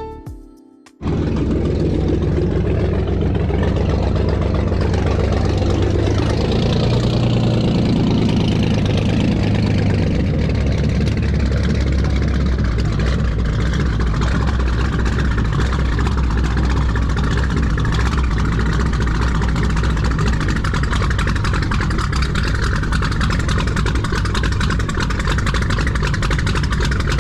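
Inboard engine of an antique wooden boat running steadily at low revs, a deep even rumble that comes in abruptly about a second in.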